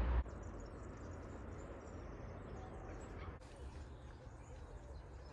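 Quiet outdoor park background with faint bird chirps.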